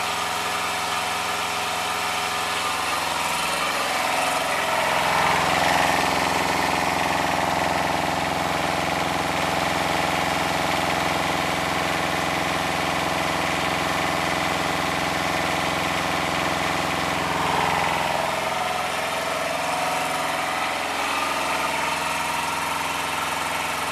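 Yanmar 2TNV70 two-cylinder diesel running in a garden tractor. It idles, speeds up about four seconds in, holds the higher speed, then drops back to idle about twenty seconds in.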